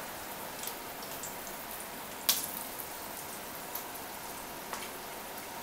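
Duck breast sizzling steadily in its rendered fat in a frying pan, a continuous crackling hiss with scattered faint pops. A single sharp click about two seconds in.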